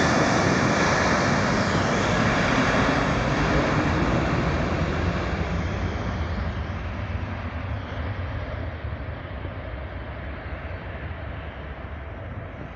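Airbus A330-200 airliner's jet engines at take-off thrust, a dense rushing noise that fades steadily as the aircraft climbs away.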